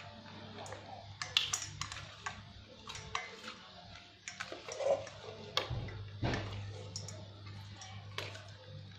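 Raw quail being rubbed and turned in a marinade by hand in a bowl: wet squelching with irregular clicks and knocks against the dish.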